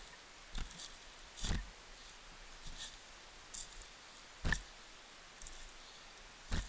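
Footsteps on dry leaf litter and loose stones: an irregular series of thuds with a crunch, about four strong ones, with fainter leaf crackles between them.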